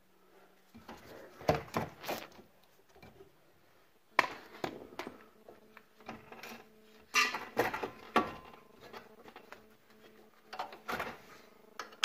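Metal clanks, clicks and scrapes of hand tools and parts being worked at a car's front brake caliper and wheel hub, coming in four short clusters over a faint steady hum.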